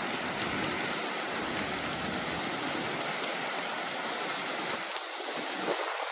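Swollen, muddy river in flood, rushing as a steady wash of water noise.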